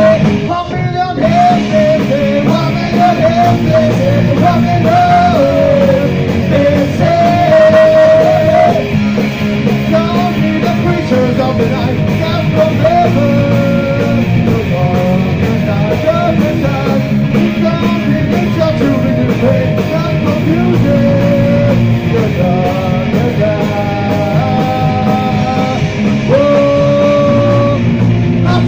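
Punk rock band playing live: distorted electric guitar through Marshall amps, bass and drums, with a shouted lead vocal over the top.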